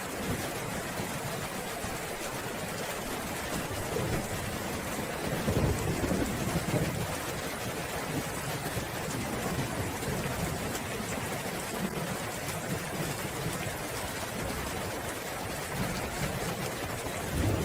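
Steady heavy rain with rolling thunder: a low rumble swells about five seconds in, dies away over a couple of seconds, and a second rumble starts near the end.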